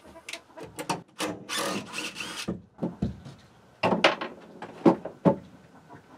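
Wooden knocks and clatter as a 2x4 brace and a cordless drill are handled against plywood, with a rasping stretch of a second or so about a second in.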